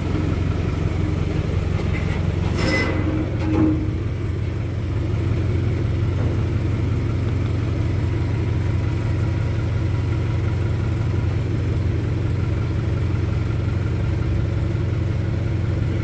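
Diesel engine of a crane truck running steadily, coming up in level at the start and then holding. A short knock is heard about three seconds in.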